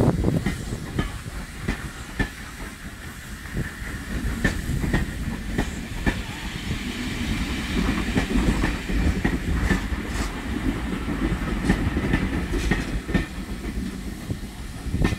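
Carriages of a steam-hauled passenger train rolling past, with a steady low rumble and the wheels clicking irregularly over the rail joints.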